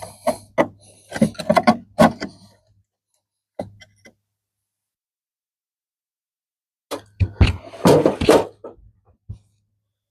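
Irregular knocks and clatter of hands-on roof tile work, in two bursts with a silent gap in the middle.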